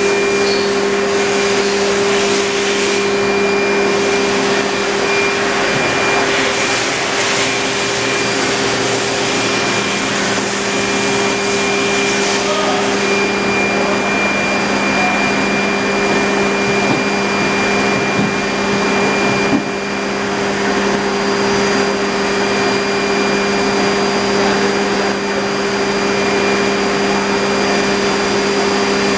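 Okuma & Howa HL-20 CNC turning center running: a loud, steady machine hum with two strong low tones and a fainter high whine, dipping briefly about two-thirds of the way through.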